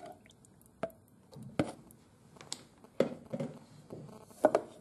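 Wooden spoon knocking and tapping against the soup maker's jug as the soup is stirred: several irregular knocks, the loudest near the end.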